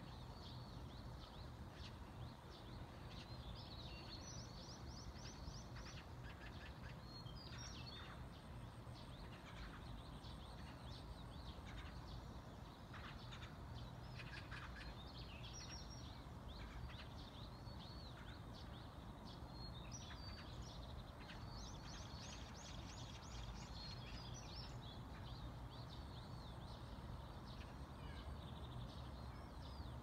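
Dawn chorus of small birds: scattered chirps and short runs of rapid, high repeated notes, faint, over a steady low background rumble.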